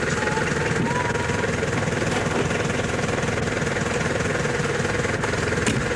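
Steady engine noise of a vehicle running, with a fast, even rattle.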